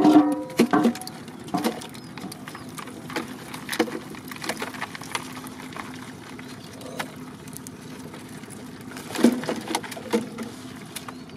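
Wet small fish, shrimp and weed being handled in a plastic crate, with a plastic bottle knocking and crinkling: irregular clicks and rustles, a cluster at the start and another about nine seconds in, over a faint steady hum.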